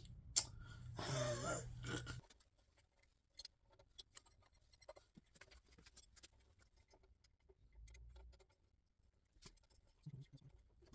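Faint scattered clicks and ticks of metal parts and hand tools as the harmonic balancer puller's bolts are threaded in on a small-block Chevy V8, with one sharper click about half a second in.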